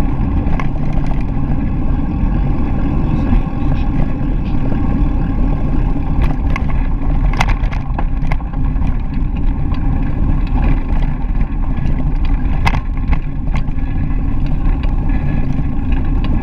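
Steady low rumble of a bicycle's tyres rolling over a gravel path, mixed with wind buffeting the action-camera microphone, with scattered sharp clicks and rattles.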